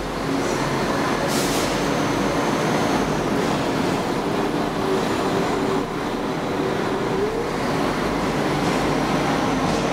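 London Midland Class 172 Turbostar diesel multiple unit running past along the platform, its engine and wheel noise steady and loud under the covered station roof, with a brief rising tone about seven seconds in.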